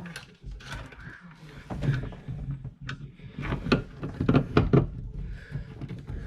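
Irregular clicks and knocks of a hand screwdriver and screw being worked against hardwood and fittings, as a screw is started into a pilot hole, busiest in the middle.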